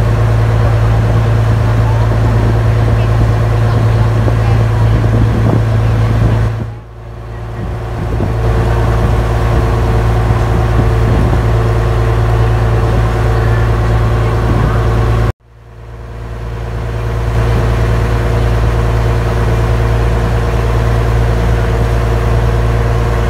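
A river boat's engine running steadily with a low, even hum, heard from on board while the boat cruises. The sound dips and recovers about a third of the way in, and cuts off suddenly a little past halfway before fading back in.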